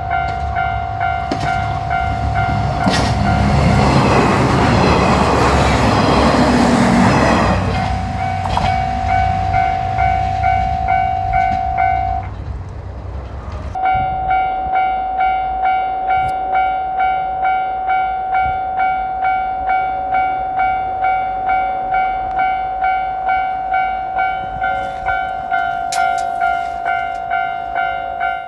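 Japanese level crossing's electronic warning bell ringing in a steady rhythm as a JR Shikoku 185-series diesel railcar passes over the crossing. The train's engine and wheels are loud for a few seconds from about four seconds in. The bell stops briefly near the middle, then rings on.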